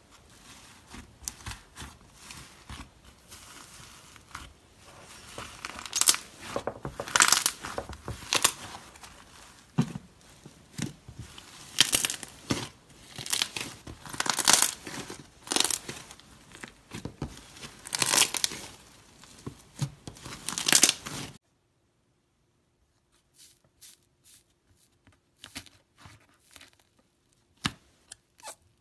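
Iceberg slime's hardened, dried crust crackling and crunching in irregular bursts as hands press and knead it. About two-thirds of the way in, the crackling cuts off and only faint scattered clicks of a softer slime being poked follow.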